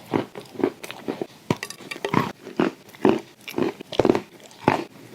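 A person chewing and crunching clay stones with paste, in a steady rhythm of about two crunches a second with sharp cracks among them.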